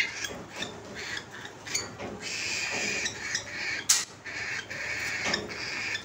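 A flock of cockatiels feeding at a plastic bowl: beaks pecking and clicking against the bowl and seed, with steady high chattering from the birds from about two seconds in. A sharp knock about four seconds in.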